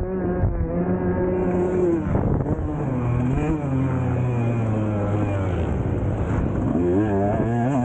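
Husqvarna TC 125's single-cylinder two-stroke engine revving hard under the rider. Its pitch is held high, drops about two seconds in, runs lower and steadier through the middle, then rises and falls quickly several times near the end.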